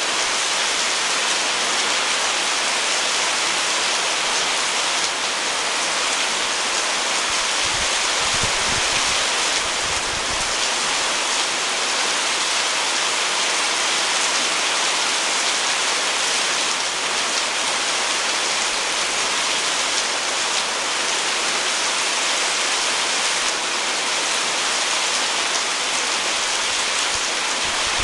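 Steady heavy rain falling on broad tropical leaves and garden plants, a dense even hiss of drops.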